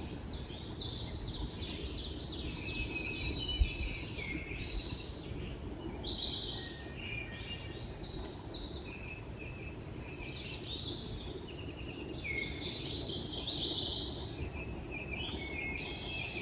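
Several songbirds singing over one another in a continuous chorus of high, quick phrases, over a low rumble of wind on the microphone, with a brief low bump about three and a half seconds in.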